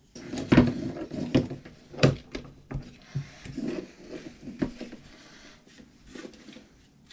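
Irregular plastic clicks and knocks with handling noise as a mount is worked back onto a DJI Phantom 3 Standard remote controller, the sharpest knocks about half a second and two seconds in.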